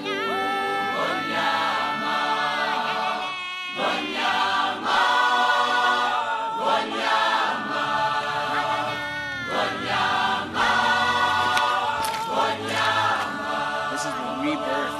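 Background music: a choir singing in sustained, chant-like phrases, breaking off briefly about every three seconds.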